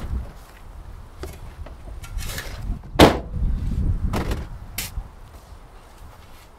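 A car door slams shut about three seconds in; it is the loudest sound. A few smaller knocks and rustles come around it, over a low rumble.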